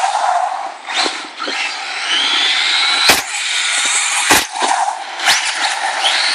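Kyosho DBX VE 2.0 RC buggy's brushless electric motor whining, rising in pitch as it accelerates about two seconds in, with three sharp knocks as the buggy lands and bounces on the asphalt.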